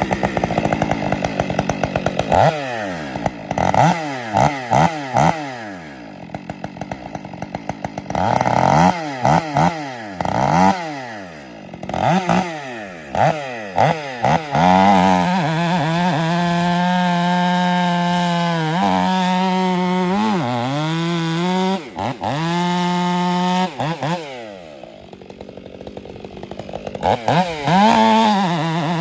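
Stihl MS 500i fuel-injected two-stroke chainsaw revved up and down repeatedly, then held at full throttle cutting through almond wood, its pitch dipping briefly under load. It eases off a few seconds before the end, then is throttled up into the cut again.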